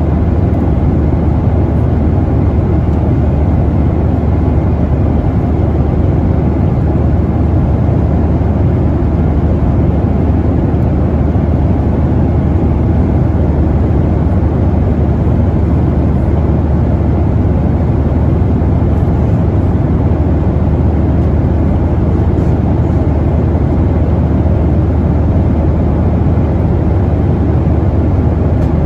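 Steady cabin noise of a Boeing 737-900ER in flight: the deep, even rumble of its CFM56-7B turbofans and airflow past the fuselage, unchanging throughout.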